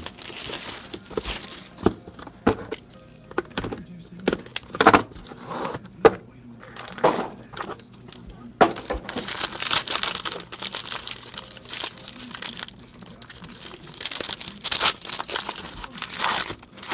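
Plastic and foil trading-card pack wrappers crinkling and tearing as a hockey card box is unpacked and a foil pack is opened by hand, with scattered clicks and taps of cardboard being handled. The rustling comes in irregular bursts, thickest in the second half.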